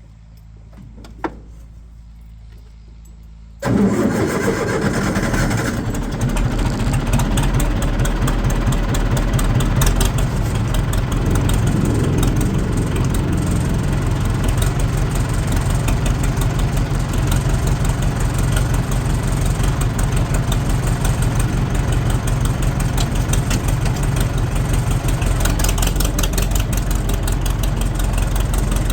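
A single click, then about four seconds in the International 674 tractor's diesel engine fires up and settles into a steady idle.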